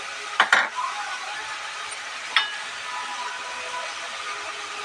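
Steady sizzle of soaked field beans with tomato and onion masala frying in an open pressure-cooker pan, with a couple of sharp knocks about half a second in and another one a couple of seconds later.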